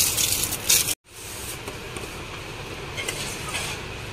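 Steady background noise of a shop floor, a low even hiss with no distinct events. It is preceded by a louder noisy stretch that cuts off abruptly about a second in.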